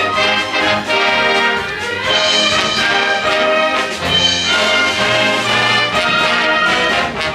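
Junior high school symphony orchestra playing full ensemble, with the brass section prominent in loud sustained chords that shift every second or two.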